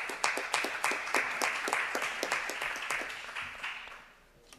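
Audience applauding with many separate claps, dying away about four seconds in.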